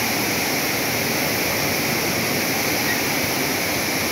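Steady rush of water pouring over the rim of an overfull steel canal and falling in a sheet back into the river below.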